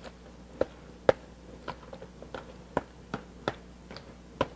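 A spoon stirring a wet, chunky chopped-tomato mix in a clear mixing bowl. It clicks against the side of the bowl about twice a second at uneven intervals.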